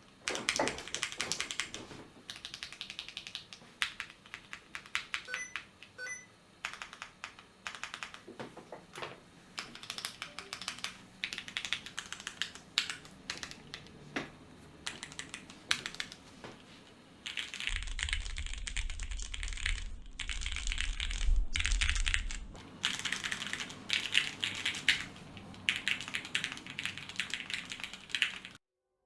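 Continuous fast typing on a custom mechanical keyboard with Cherry MX Black linear switches on TX 55g springs, an aluminium plate and XMI Wubi keycaps: a dense, irregular run of key clacks. A low hum sits under the typing for a few seconds in the middle, and the typing cuts off just before the end.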